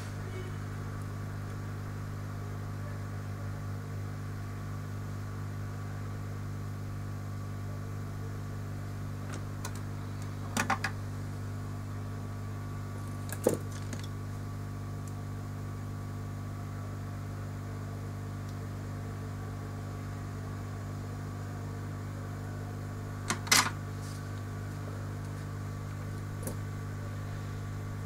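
Steady low electrical hum, with a few short sharp clicks and taps standing out, the loudest about two-thirds of the way through.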